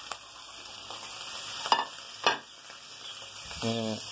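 Longaniza sausage and chopped vegetables sizzling in a hot frying pan. Two sharp knocks of a knife against the pan come about two seconds in as the food is stirred.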